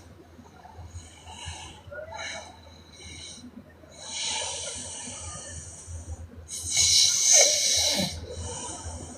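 A woman snoring in her sleep: a run of airy, hissing breaths, faint and short at first, then a longer one about four seconds in and the loudest one about seven seconds in.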